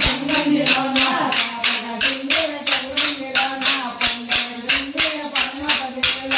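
Wooden kolata dance sticks clacking together in a fast steady rhythm, about four strikes a second, as dancers strike them in pairs. Voices sing along underneath.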